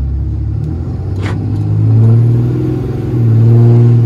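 6.7-litre Cummins turbo-diesel in a Ram 2500 with a 5-inch straight-pipe exhaust, pulling away under throttle. The engine note swells louder about two seconds in, eases briefly, then rises again.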